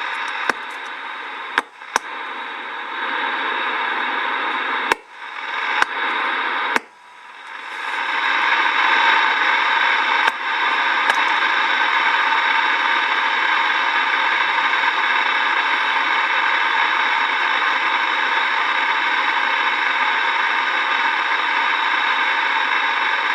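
Galaxy DX979 CB radio receiver hiss from its internal speaker, now working again with a jumper across the external-speaker jack. Clicks and brief dropouts come as the controls are turned in the first seven seconds, then the static swells louder and runs on steadily from about eight seconds in.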